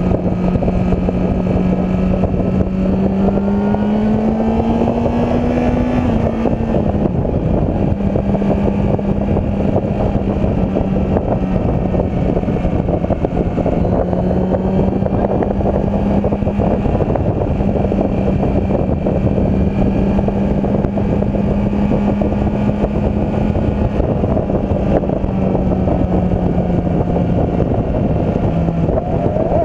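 Honda CBR sportbike's inline-four engine cruising at a steady highway speed, heard from the rider's seat with wind rushing over the microphone. The engine note rises slightly a few seconds in, drops back about seven seconds in, then holds steady.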